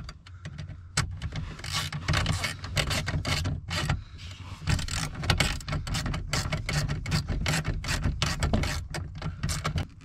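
Hand ratchet clicking in quick irregular runs as a nut is run down and tightened, with metal scraping, over a steady low hum.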